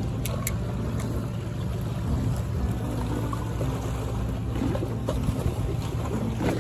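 Steady low engine drone, with a few faint clicks in the first second.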